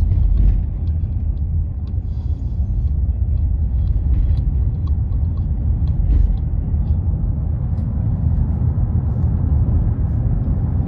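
A loud, steady low rumble that starts abruptly, with a few faint ticks over it.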